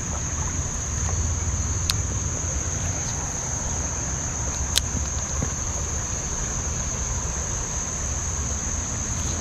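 Insects chirring in a steady high-pitched drone over a low, steady rush of creek water, with two sharp clicks about two and five seconds in.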